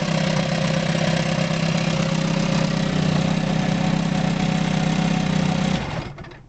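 1966 Chrysler 9.2 hp two-stroke outboard motor running steadily with its lower unit in a water test tank, then shut off about six seconds in, the sound dying away within half a second.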